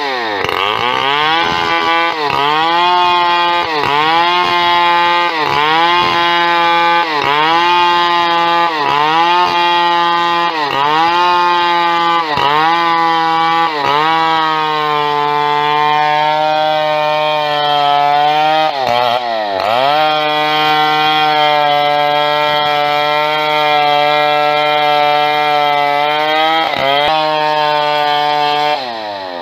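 Two-stroke chainsaw running at high throttle while ripping a timber beam lengthwise into boards. For the first half its pitch dips and recovers about once a second as the chain bites under load, then it mostly holds steady with a couple more dips near the end.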